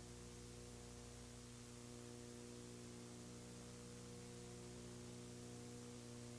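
Near silence: a faint, steady electrical hum with a layer of hiss.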